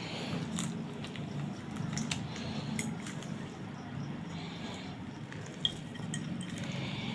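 Onion pulp squeezed in a cloth by rubber-gloved hands over a porcelain dish: wet squishing and cloth-and-glove rubbing, with light clicks against the dish and one sharper click about five and a half seconds in.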